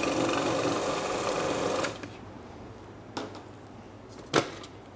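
Robot Coupe food processor running, blending a chicken mousse as double cream is added, then switched off about two seconds in. A few sharp clicks follow as its lid is handled, the loudest near the end.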